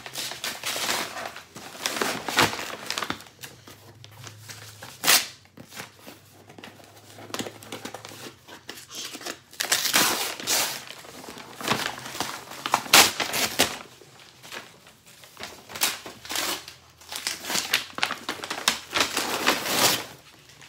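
Crumpled brown kraft packing paper crinkling and rustling as it is handled and pulled out of a cardboard shipping box, in irregular bursts with a few sharper cracks.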